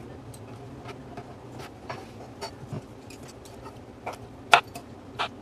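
Chef's knife cutting asparagus spears on a plastic cutting board: irregular sharp taps and clicks, the loudest about four and a half seconds in.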